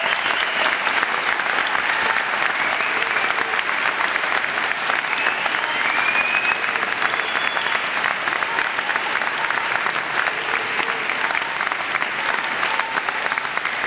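A large audience applauding steadily, a dense continuous clapping, with a few faint voices or calls heard over it.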